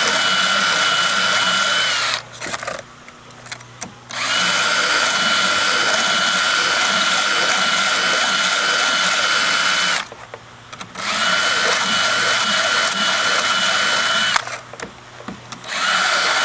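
Cordless drill spinning a round chainsaw file against the chain's teeth to sharpen them: a steady high whine in three long runs, stopping briefly twice in the middle and once near the end before starting up again.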